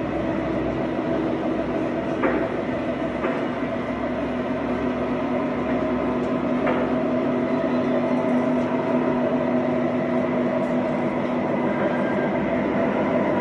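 Model train cars rolling past on the track: a steady running hum of wheels and rails with a few short clicks, growing a little louder in the second half.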